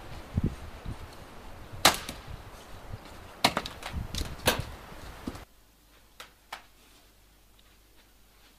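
Firewood being split with an axe: three loud sharp chops about a second to a second and a half apart, with a few lighter knocks between them. About two-thirds of the way in the outdoor sound stops abruptly, leaving quiet room tone with two light clicks.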